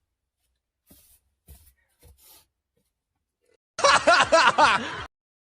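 Near silence with a few faint soft ticks, then about four seconds in a short burst of people laughing, just over a second long, that cuts off suddenly.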